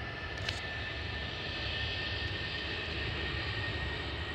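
Distant jet airliner's engines on the runway: a steady rumble and hiss with a thin high whine.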